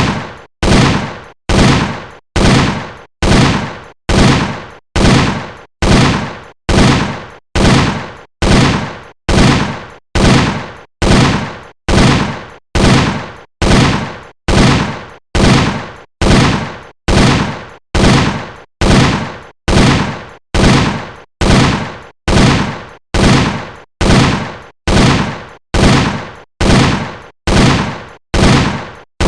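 M60 machine-gun sound effect, 7.62 mm: single sharp shots repeated at an even pace, about three every two seconds, each with a short decaying tail.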